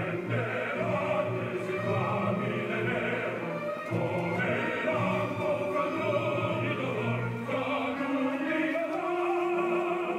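Opera played back from a television: a male soloist and men's chorus singing with orchestra.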